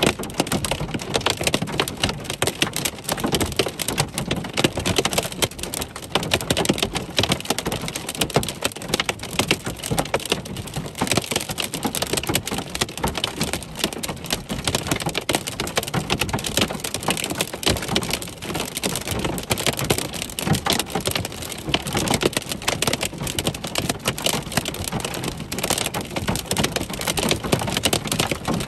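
Hail pelting the car's roof, hood and windshield, heard from inside the car: a dense, steady clatter of countless small hits from an intense hail core.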